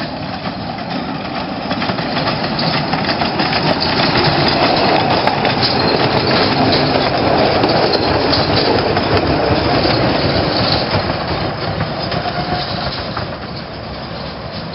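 Replica of Sir Arthur Heywood's 15-inch gauge steam locomotive 'Ursula' hauling a short goods train past at close range, its steam exhaust and wheels on the rails swelling to a peak and then fading as the train runs away.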